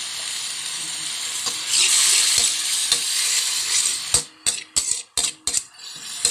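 Ground meat, garlic and onion sizzling in hot margarine in a pan, the sizzle growing louder about two seconds in. From about four seconds in, a spatula scrapes and knocks against the pan in about six quick stirring strokes.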